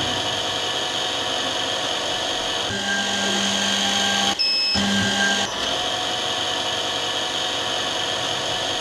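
Small high-speed spindle motor of an automatic optical-lens drilling machine running steadily while it drills holes in a spectacle lens. A lower hum joins from about three seconds in until about five and a half seconds, and the sound drops out briefly with a short beep about four and a half seconds in.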